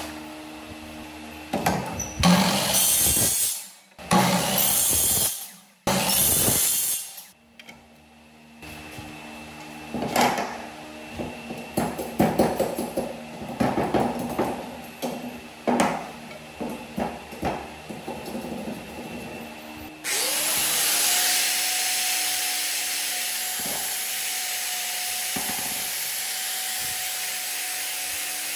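Bamboo work: three loud bursts of noise in the first seven seconds, then a run of sharp knocks as a hatchet chops green bamboo on a wooden block. About twenty seconds in, an electric angle grinder starts, its whine rising and then holding steady.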